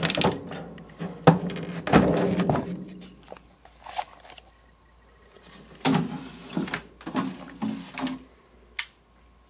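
Glass front doors of a reptile vivarium being unlatched and slid open: knocks and clatter, then scraping as the glass runs along its track, in two spells with a quieter gap between them.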